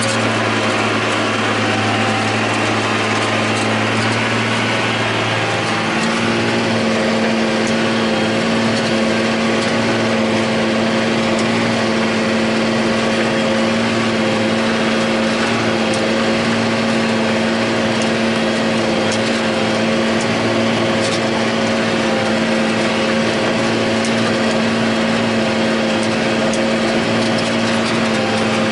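John Deere 8100 tractor's six-cylinder diesel engine running steadily under load, pulling a disk ripper through the ground, heard from inside the cab. Its note shifts slightly about six seconds in, and light ticks and rattles sound over the drone.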